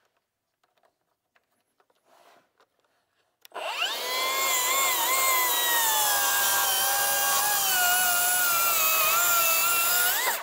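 Milwaukee M18 Fuel cordless track saw starting about three and a half seconds in and cutting along its track through wood at a 22.5° bevel. Its motor whine sinks slowly in pitch under load, then rises briefly just before it stops.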